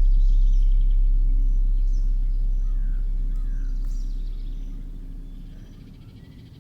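A deep, steady meditation drone fades out over a few seconds. Birds chirp and call faintly in a nature-sound background, which carries on once the drone has gone.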